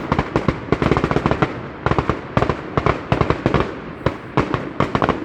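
Fireworks and firecrackers going off in a dense, irregular barrage of bangs and crackles, many sharp reports a second, with no let-up.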